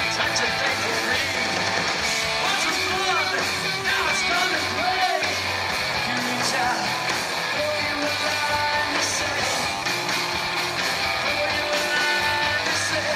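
Live rock band playing: electric guitar and drums, with the singer's vocals over them.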